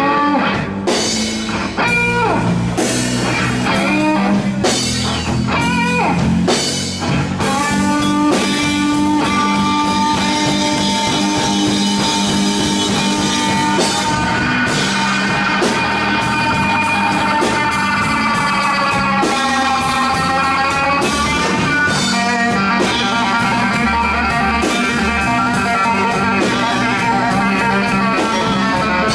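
Electric blues band playing an instrumental section: an electric guitar solo over bass and drum kit. The guitar plays quick runs at first, then a long held note that wavers and bends down in pitch.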